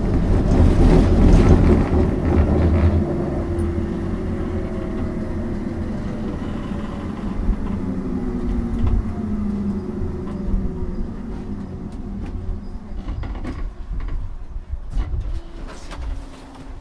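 Electric tram running on its rails, a steady low rumble with a motor whine that shifts in pitch. It grows quieter with clicks and rattles near the end as it slows into a stop.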